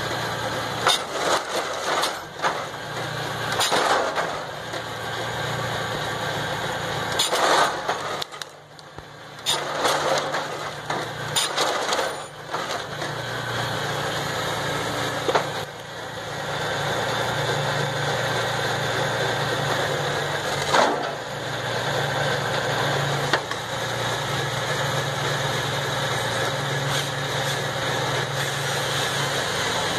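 MB trac 1000 tractor's six-cylinder diesel running steadily, powering a Vimek G30 processor head as it feeds and delimbs a pine stem. Repeated sharp cracks of branches snapping off come mostly in the first half, with a short lull a little after a quarter of the way through.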